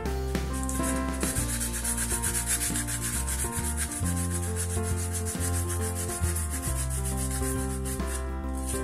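Sandpaper rubbed quickly back and forth by hand over a small part, in fast, even strokes. Acoustic background music plays underneath.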